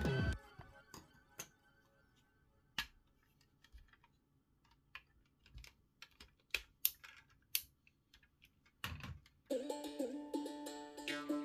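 Hard plastic parts of a transforming car robot toy clicking and snapping as they are folded and locked by hand: scattered sharp clicks, the loudest about 7 seconds in, and a brief rub of handling just before 9 seconds. Background music stops at the start and comes back in near the end.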